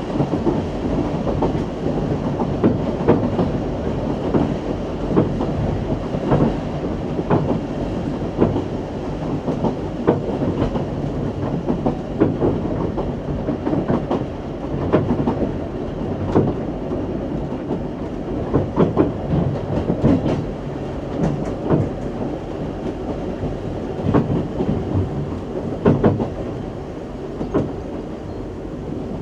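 Isle of Man Steam Railway train running along the track: a steady rumble with irregular clicks and knocks as the wheels pass over rail joints. It grows a little quieter near the end.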